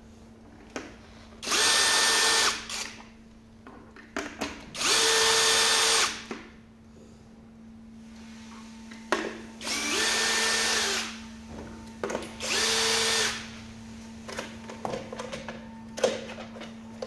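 Cordless drill backing screws out of a hoverboard's plastic cover: four short runs of the motor, each about a second long at a steady pitch, with small clicks and knocks between them.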